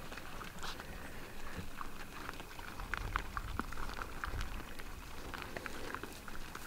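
Tall dry grass rustling and crackling with many small snaps as a person stalks slowly through it.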